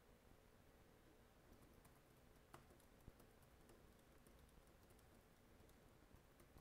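Near silence with faint computer keyboard typing: scattered soft key clicks, two slightly sharper ones near the middle.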